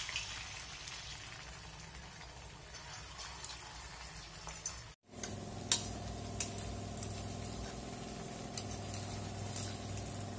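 Oil sizzling as pieces of semolina-and-potato dough deep-fry in a kadhai, with a few sharp taps of a metal spatula against the pan. After a brief cut about five seconds in, a steady low hum runs under the sizzle.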